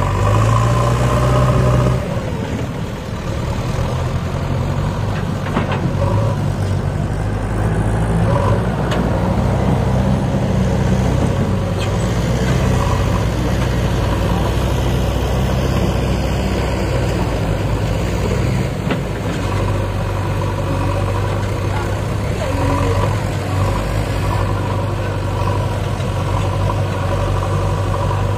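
JCB 3DX backhoe loader's diesel engine running, its pitch rising and falling in the first half as the machine works under load, then holding steadier.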